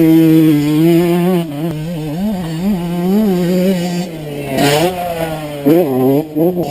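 Kawasaki KX 125 motocross bike's single-cylinder 125 cc two-stroke engine running under throttle, its pitch rising and falling repeatedly with short blips, and sharper revs about two-thirds of the way through and near the end.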